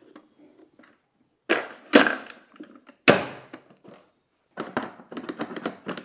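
Plastic knocks and clunks from handling an Agaro Twister bagged canister vacuum cleaner, its dust-compartment lid and body. There are a few sharp clunks in the first half, the loudest about three seconds in, then a run of lighter clatters near the end.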